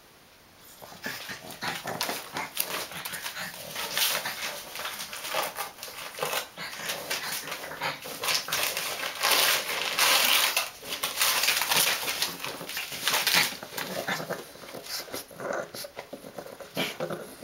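Newspaper rustling and crumpling in irregular bursts as a pug puppy plays with it and tears it.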